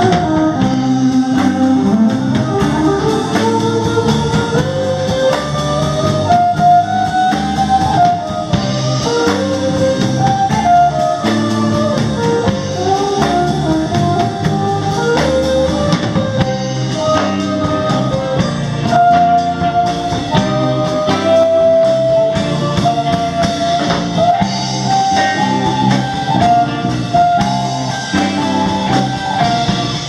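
Live rock band playing an instrumental passage: electric guitar and violin over bass guitar and drum kit, with a melody line that slides and bends in pitch.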